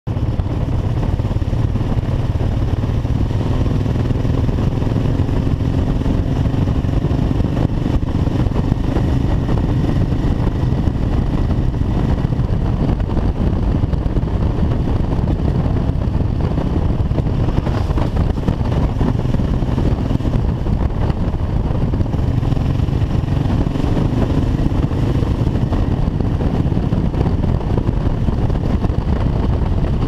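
Honda XRV750 Africa Twin's V-twin engine running steadily at cruising speed, under a constant rush of wind noise on the microphone.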